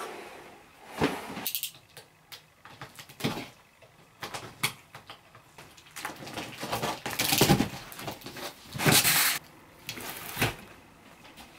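Cardboard boxes and paper packaging being handled: scattered knocks and scrapes of cardboard, with louder rustling and sliding about seven and nine seconds in.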